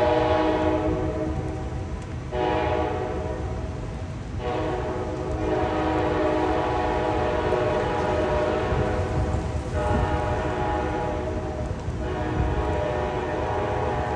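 Sounder commuter train sounding its chord air horn in a series of long, held blasts as it approaches, with brief breaks between them. Under the horn runs a steady low rumble of the train.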